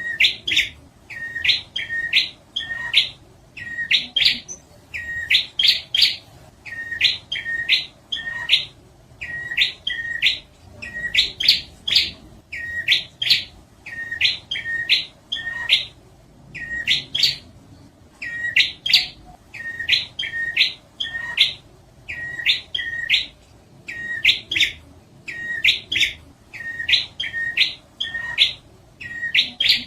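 Prinia (prenjak) song used as a bird-trapping lure call: quick, sharp chirps that sweep upward, in groups of two to four, repeated about once a second without a break.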